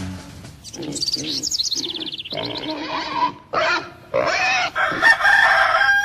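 Farmyard animal sound effects: separate animal calls, with a quick falling twitter of chirps about a second in and longer pitched calls near the end.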